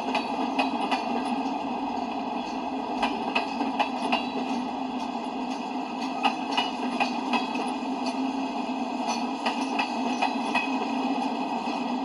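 Freight cars of a mixed manifest train rolling past on the rails: a steady rolling noise of steel wheels on track, broken by irregular sharp clicks and clanks from the wheels passing rail joints.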